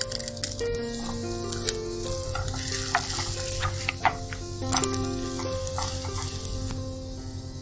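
Potato, ham and egg omelettes sizzling in a non-stick frying pan while wooden spatulas scrape and knock against the pan as they are flipped, with several sharp clicks scattered through the middle.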